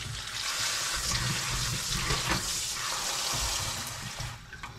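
Kitchen tap running, its stream splashing onto chopped potatoes in a metal draining pan as they are rinsed; the flow stops near the end.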